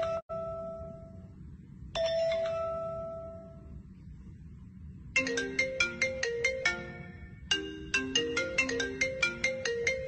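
Smartphone ringtones playing from the phone's speaker. A single chime note rings and fades, and another comes about two seconds in. From about five seconds a quick melody of short notes plays, with a brief break partway through.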